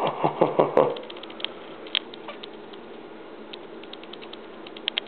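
Paper and cardboard of a shipping box being handled and crinkled: a quick run of crackles in the first second, then a few small scattered clicks.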